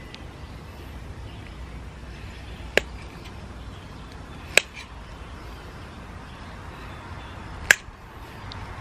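Hand snips cutting green-coated steel garden-fence wire: three sharp clicks, one about three seconds in, one about halfway and one near the end, over steady low background noise.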